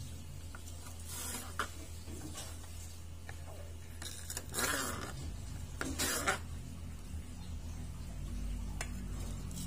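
Kitchen knife slicing lengthwise through crisp vegetable stalks on a plastic cutting board, in a few short scraping strokes, the longest about halfway through, over a steady low hum.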